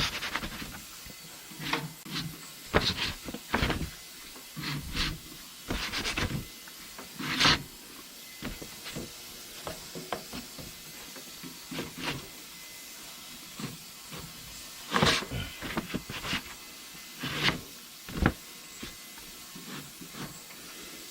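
Scattered clicks, knocks and scraping from hand work on a small engine: the flywheel being turned by hand and a new ignition coil being positioned against its magnets with a strip of folder as a gap gauge, over a faint steady hiss.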